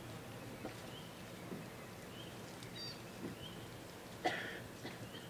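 Faint bush ambience: a bird giving a short high chirp about once a second, with a single sharp snap about four seconds in.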